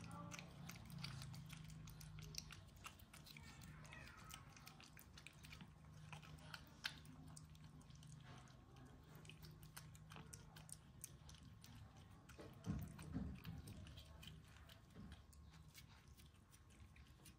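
Two cats licking at a squeeze tube of creamy cat treat: faint, quick wet licking clicks throughout, with a couple of soft low bumps about two thirds of the way in.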